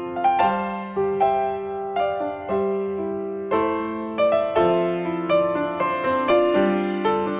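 Piano playing a slow, gentle tune in chords, each struck note ringing and fading before the next.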